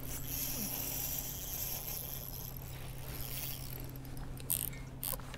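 Fishing reel being worked against a freshly hooked fish, its gears and drag running, over a steady low hum. A couple of short sharp ticks come near the end.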